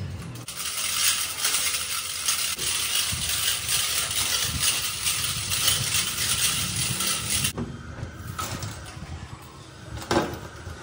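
Steel hoist chain rattling and clinking fast as it runs, lowering a heavy turned spindle; the rattle stops about seven and a half seconds in. About ten seconds in there is a single clank as the spindle comes down.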